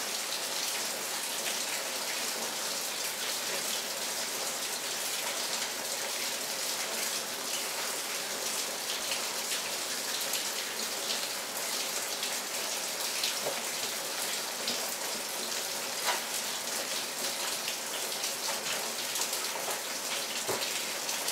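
Steady rain falling, a continuous hiss dotted with many small drop hits.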